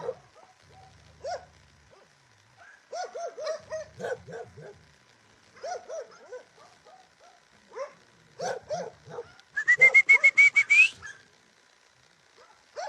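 Dog whimpering and yipping in short arched calls, in several bunches. About ten seconds in comes a brief, loud high squeal that rises at the end, the loudest sound.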